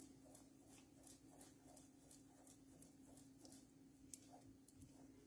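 Faint scraping strokes of a wooden spatula stirring thick cornstarch paste in a frying pan, about three strokes a second, as the starch is worked in to keep it from lumping. A sharper click comes just after four seconds in, over a faint steady hum.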